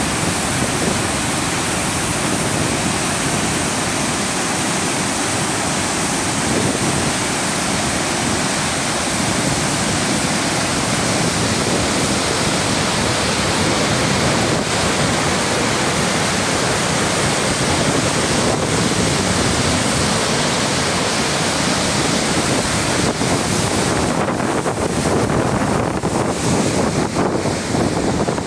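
Falls of Dochart on the River Dochart in spate: a loud, steady roar of white water pouring over rocks. Near the end the roar turns ragged and uneven.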